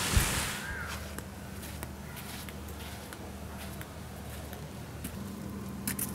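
A rush of splashing water noise dies away within the first second, leaving a faint steady low hum and soft, irregular footsteps on a sandy path. Near the end, a couple of sharper clicks from the metal handle of a wooden door being grasped.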